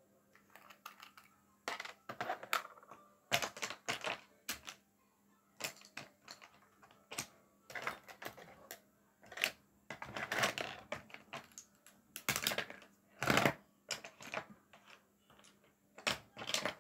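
Makeup containers and tools being handled and rummaged through: irregular clicks, taps and clatter of small items knocking together, with a few longer rattles in the second half.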